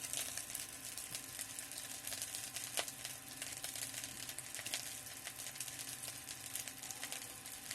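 Faint sizzling and crackling of vermicelli frying in the hot pot of an electric kettle, its heating switched off for a moment. One sharper click about three seconds in.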